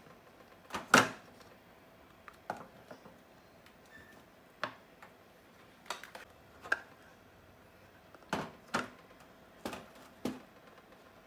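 Handling knocks and clicks from a grey PVC pipe lamp housing, its cap carrying an LED bulb, as the cap is fitted onto and taken off the pipe holding the 18650 cells. About a dozen separate sharp knocks, the loudest about a second in.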